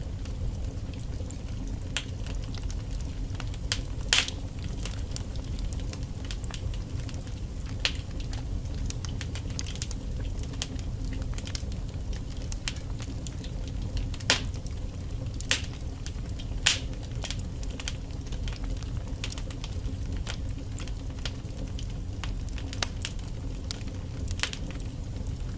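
Wood fire burning in a fireplace: a steady low rumble of flames with scattered sharp crackles and pops from the logs, a few louder pops standing out.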